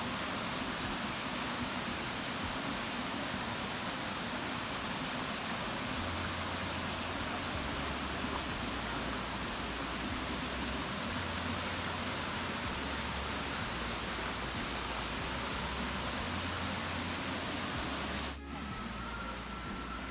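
Waterfall rushing: a steady, even wash of falling water. From about six seconds in, low bass notes shift underneath every second or two. Near the end the sound cuts suddenly to a quieter shot.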